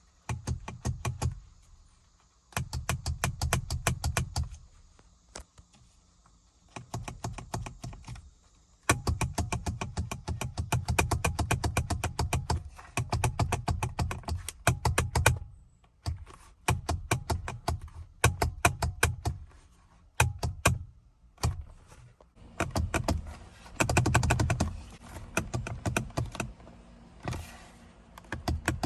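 Rapid, even clicking at about ten clicks a second, in about a dozen bursts of one to three seconds, as the horn of a 2012 Nissan Maxima SV is pressed and gives no proper honk.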